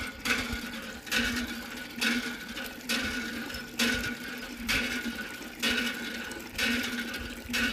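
Water pumped through a thin plastic tube splashing onto a toy scooter, over the steady hum of a small pump, with a surge of water about once a second.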